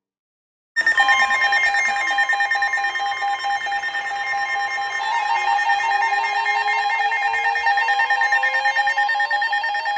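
Several weather alert radios going off together for a severe thunderstorm warning: a steady alert tone with rapid electronic beeping at several pitches. More beep patterns join about halfway, and a slowly rising tone climbs under them near the end.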